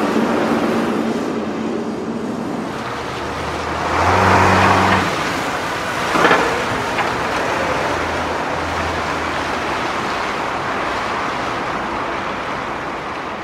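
Vehicle engines and road traffic running steadily, louder for about a second around four seconds in, with a short sharp noise just after six seconds.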